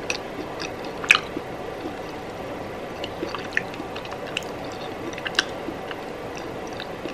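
A person chewing a piece of chocolate close to the microphone: soft wet mouth clicks and smacks at irregular intervals, the sharpest about a second in.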